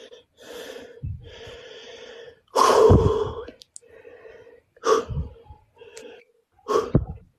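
Several short, breathy bursts of a man's laughter, the loudest about three seconds in.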